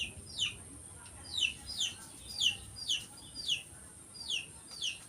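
Chicks peeping: a run of short, high cheeps, each sliding down in pitch, about two a second.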